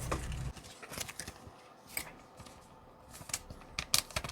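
Pokémon trading cards being handled: a scatter of short, sharp card clicks and flicks, several close together near the end. A low hum stops about half a second in.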